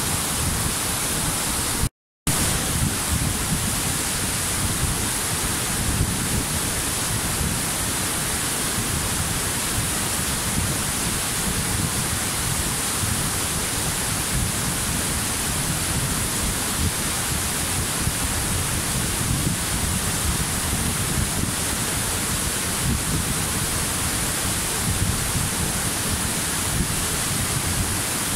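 Waterfall: falling water rushing steadily. It cuts out completely for a split second about two seconds in.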